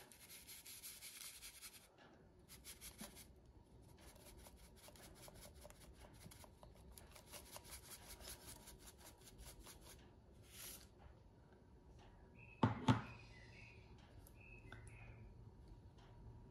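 Chocolate being grated over a drink: a long run of quick rasping strokes on a grater. A single sharp knock comes about three-quarters of the way through.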